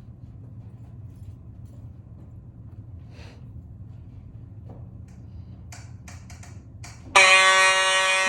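Fire alarm sounding suddenly about seven seconds in: a loud, steady buzzing tone with many overtones. Before it there is only a low hum and a few light clicks.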